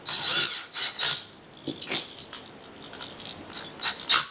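Cordless drill-driver spinning a terminal screw down onto the neutral wire of an electrical receptacle. It gives a steady whine for about a second at the start and a shorter run near the end, with small clicks and rattles of the screw and receptacle in between.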